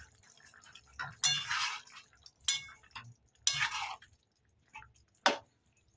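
Metal spatula stirring a thick okra and potato curry in a metal pan: a few wet scraping strokes against the pan, then a sharp clink about five seconds in.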